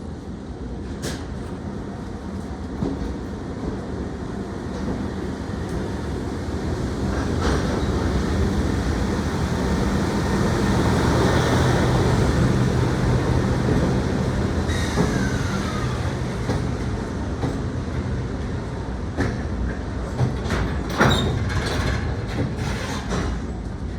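Chichibu Railway freight train, an electric locomotive hauling wagons, rolling past with a steady rumble that builds to a peak about halfway and then eases off. A short falling whine comes a little past the middle, and sharp clacks of wheels over rail joints sound in the last few seconds.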